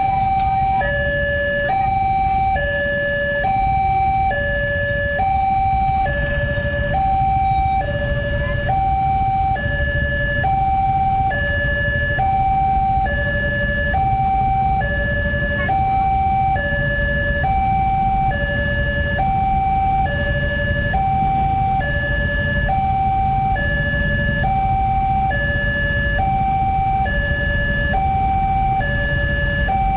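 Railway level-crossing warning alarm from the loudspeaker on the crossing post: an electronic two-tone signal alternating between a higher and a lower note, each held about a second, repeating steadily over a low rumble.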